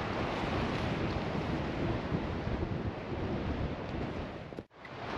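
Strong wind rushing over the microphone, mixed with the steady wash of surf on the beach. The sound cuts out for a moment near the end, then carries on.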